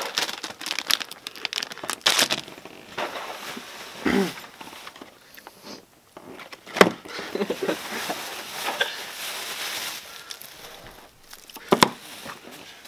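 Snack packages being handled and set down: rustling and crinkling with scattered sharp clicks and knocks, the loudest about seven and twelve seconds in, and a brief vocal sound about four seconds in.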